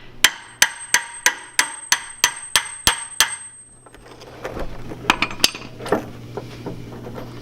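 A hammer strikes metal about ten times in a quick even rhythm, roughly three blows a second, each with a ringing note. The blows are meant to break loose a seized fastener under the car. After them come a few lighter metal clinks and taps.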